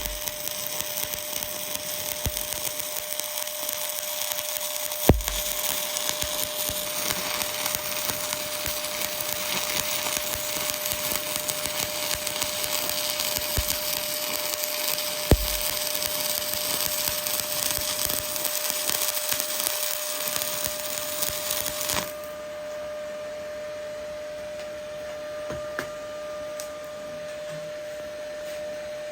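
Stick welding (SMAW) arc crackling steadily while a bead is run in the horizontal position, with a couple of sharp pops along the way. The arc cuts off suddenly about two-thirds of the way through, leaving a faint steady hum.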